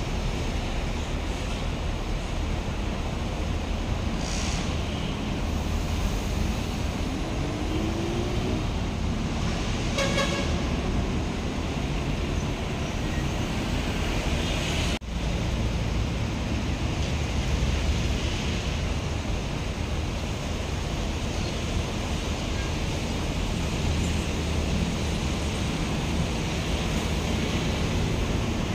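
Busy road traffic: buses and motorcycles passing with engines running in a steady low rumble, one engine rising in pitch as it accelerates, and a short horn toot about ten seconds in.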